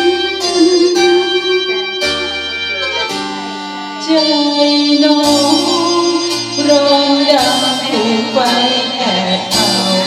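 A woman singing into a handheld microphone over instrumental backing music with plucked-string and keyboard notes; her held, wavering sung lines come in more strongly about four seconds in.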